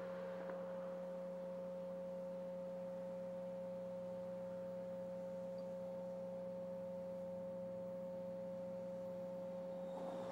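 Steady, even drone of approaching Canadian Pacific diesel freight locomotives heard from a distance. It is a clear, humming tone with little other noise, and the louder rumble of the train comes back near the end.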